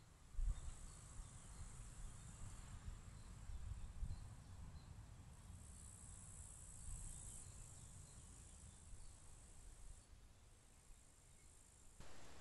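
Insects in the meadow grass making a faint, high-pitched steady buzz that comes and goes in stretches of a couple of seconds. Under it is a low, irregular rumble.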